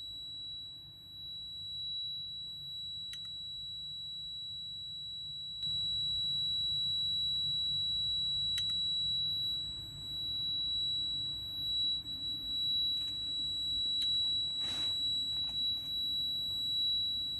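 Fire alarm control panel's internal buzzer sounding one continuous high-pitched tone while the panel is hung with no display. A few sharp clicks come through it, and there is a cluster of knocks in the last few seconds.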